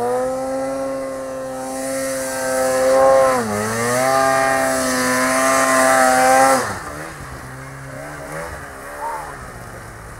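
Snowmobile engine held at high revs as the sled ploughs through deep powder. The revs dip briefly about three and a half seconds in, then come back up. Nearer seven seconds in the rider backs off the throttle and the engine falls to a quieter, lower running.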